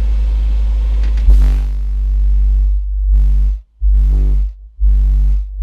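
Car audio subwoofer system playing bass-heavy electronic music at high volume. A steady deep bass drone runs first, then about a second in heavy bass notes hit in pulses. The sound drops out abruptly between the pulses.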